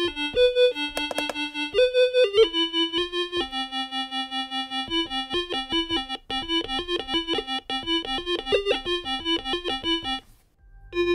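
DIY kit monophonic synthesizer playing a quick chiptune-like melody from its touch-pad keys, through its small built-in speaker. The notes are buzzy and full of overtones and pulse rapidly in loudness; the playing stops about ten seconds in.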